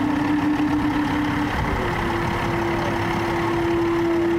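A long, steady horn-like tone over a low rumble. At first two close tones sound together; then a single, slightly higher tone is held for about three seconds.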